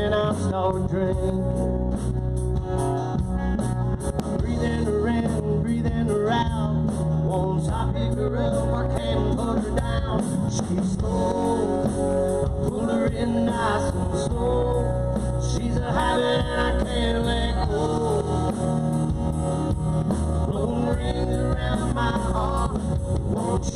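Live band music, amplified, led by guitar over a steady bass.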